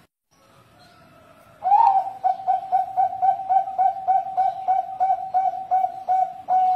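Bangkok-bred zebra dove (perkutut) singing: a long run of quick, even coos on one pitch, about three a second, starting a little under two seconds in and closing with a longer held note.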